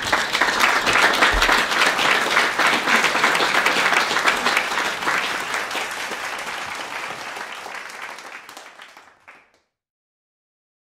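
Audience applauding, a dense patter of many hands clapping that stays full for about five seconds, then dies away and stops near the end.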